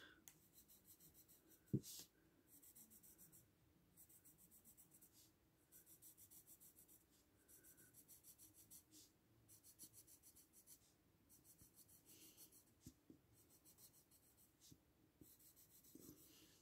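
Faint scratching of a graphite pencil on paper, in runs of quick short hatching strokes (about five a second) with brief pauses, as shadows are shaded in. One light, sharp tap about two seconds in.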